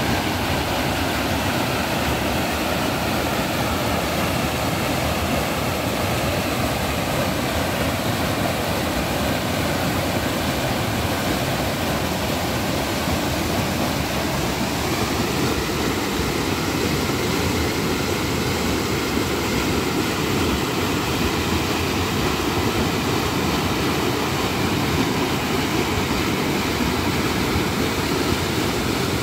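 Steady rush of a river running over rocky cascades, an even wash of water noise.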